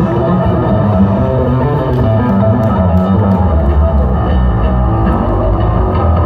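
Electric bass guitar played solo through a loud stage amplifier rig: a continuous run of notes with a heavy low end.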